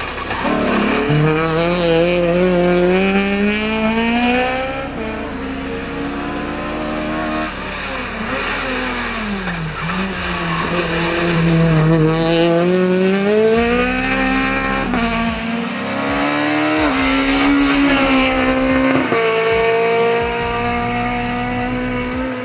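Citroën C2 Super 1600's naturally aspirated 1.6-litre four-cylinder engine at full throttle on a hillclimb, revs rising sharply through each gear and dropping at every shift and when braking for the bends. Tyres squeal briefly as the car slides through a tight hairpin.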